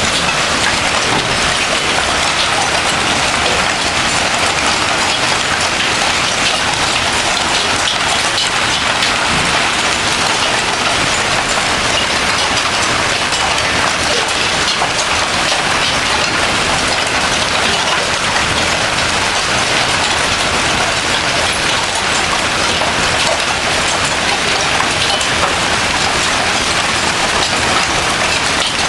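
Heavy rain mixed with hail pelting down, a dense, steady clatter of countless stones and drops striking surfaces.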